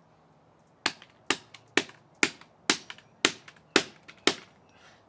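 Hammer striking a Dell laptop power cord and adapter eight times in a steady rhythm, about two blows a second, each followed by a lighter knock as the hammer bounces.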